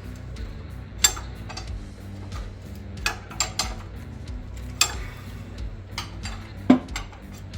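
Background music with a steady low beat, over which sharp metallic clinks of tools on parts sound about five times, the loudest near the end.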